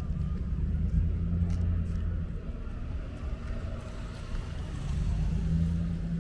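Car engines running close by, a low steady rumble with an engine hum that swells about a second in and again near the end.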